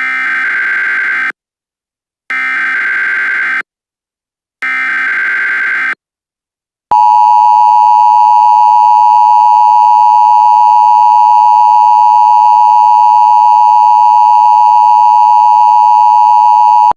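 Emergency Alert System tones: three short bursts of SAME header data, each a harsh digital warble about a second long with a short gap between them, then the EAS two-tone attention signal, a loud steady dual tone held for about ten seconds.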